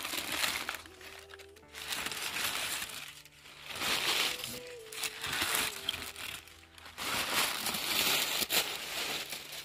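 White packing paper crinkling and rustling as it is pulled out of a cardboard box, in about four bursts, with background music underneath.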